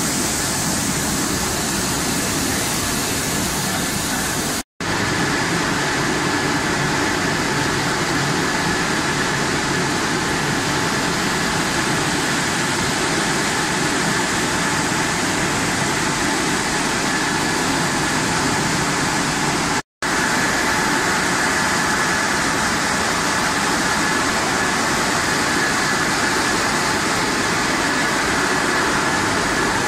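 French fries production line machinery running: a steady mechanical din of motors and conveyors with a constant high whine and a lower hum, mixed with rushing water. It breaks off for an instant twice.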